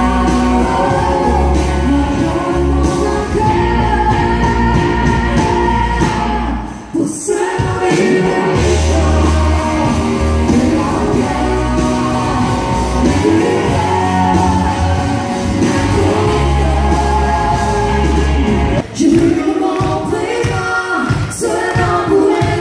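Live country-rock band playing: singing over acoustic and electric guitars and drums. The music drops briefly about seven seconds in, then carries on.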